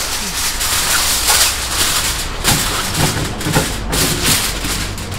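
Aluminium cooking foil crinkling and crackling as gloved hands spread and press a sheet of it over a large round pan.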